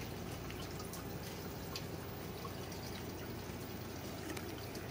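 Faint, steady trickling and dripping of water running through a balcony hydroponic system's PVC grow pipes, with a few small drips and a low hum beneath.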